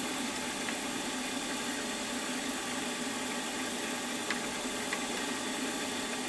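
Milling machine running steadily with a constant hum, with a few faint clicks.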